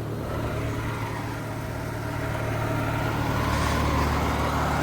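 Carrier Comfort 4-ton heat pump outdoor unit running in heat mode just after startup: a steady, pretty noisy hum from its scroll compressor and fan that grows gradually louder as the unit ramps up.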